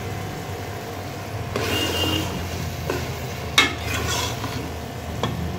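A metal spoon stirring thick turnip and spinach curry in a steel pot: wet scraping with a few sharp clinks against the pot, the loudest about three and a half seconds in, over a faint sizzle and a steady low hum.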